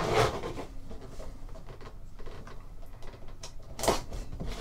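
Hands handling and opening a cardboard trading-card box: rubbing and rustling against the packaging at first, then a few sharp scraping clicks near the end as the box is worked open.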